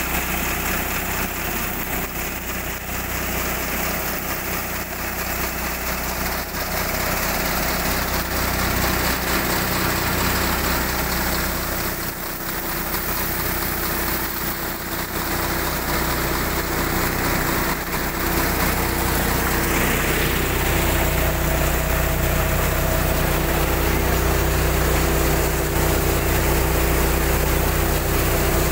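Engine-driven mustard thresher running steadily while harvested mustard plants are fed in and threshed; the engine note holds a constant pitch, with a slightly fuller, heavier tone in the last third.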